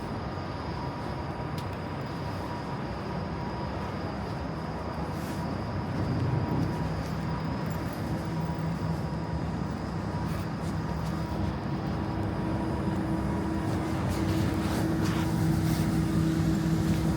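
Steady mechanical drone of a city, with a low hum that strengthens about six seconds in and again over the last several seconds.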